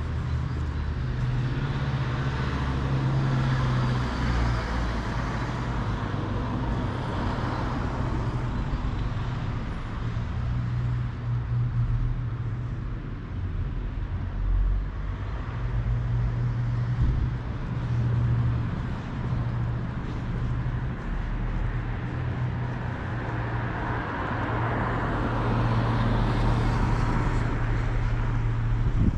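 Road traffic: cars passing on the street, their tyre noise swelling and fading twice, a few seconds in and again near the end, over a steady low rumble.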